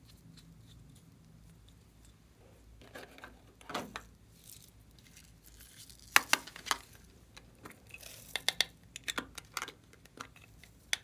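Small hard plastic containers handled in the hands: a few soft rustles, then from about halfway a run of sharp clicks and taps as the plastic bottles and caps knock against each other.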